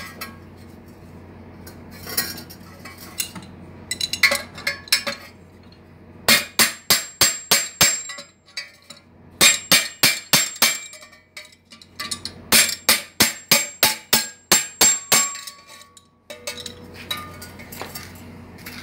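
Quick metal-on-metal blows with a ringing clink, about four a second, in three runs from about six seconds in, driving a replacement core down inside a Honda Twister motorcycle's steel exhaust muffler shell. A few lighter scattered knocks come before them.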